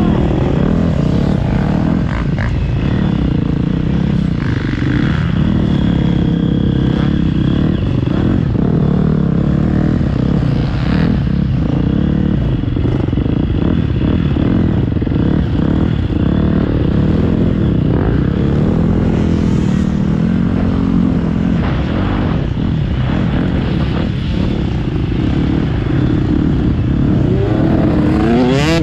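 Motocross bike engine running hard, heard from on the bike itself, its pitch rising and falling over and over with throttle and gear changes. Near the end another dirt bike close alongside revs up sharply.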